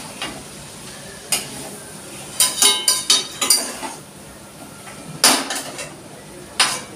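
Metal spatula knocking and scraping against a metal wok while stirring. There are single clacks, then a quick run of them in the middle, then two sharp knocks near the end.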